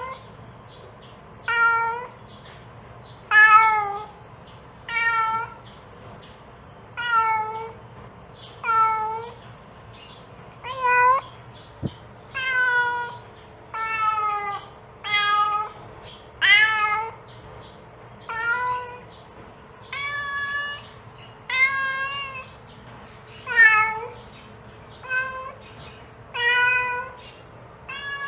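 Domestic cat meowing over and over, one call about every one and a half to two seconds, many of them bending up and then down in pitch: a mother cat calling for her kittens.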